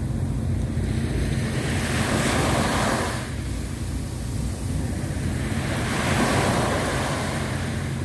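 Sea waves washing ashore, two surges swelling and falling back, over a steady low rumble of wind on the microphone.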